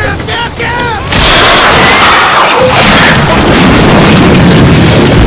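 Oil well blowing out at a wooden drilling rig. First come a few short squeals whose pitch rises and falls. About a second in, a sudden loud blast breaks out and carries on as a steady, loud rush of escaping gas and mud.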